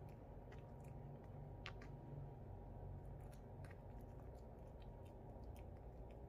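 Pomeranian puppy gnawing a hard round chew treat held in its paws: faint, irregular clicks and crunches of teeth on the treat over a low steady hum.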